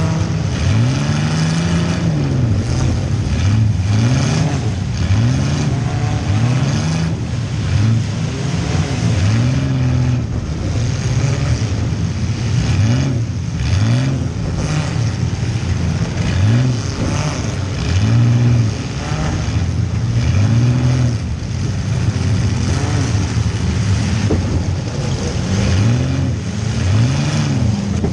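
Compact demolition-derby car's engine heard from inside the cabin, revving up and falling back again and again as the car accelerates, stops and reverses, with several sharp knocks.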